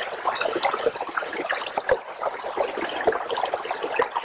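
A small fell creek babbling, a steady trickling of running water.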